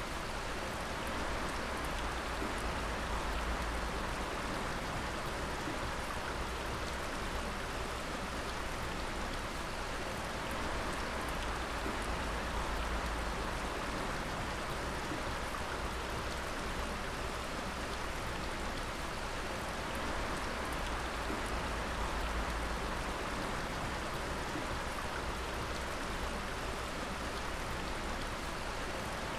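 Water dripping from many points at once, a dense steady patter of drops that sounds like rain, unchanging throughout.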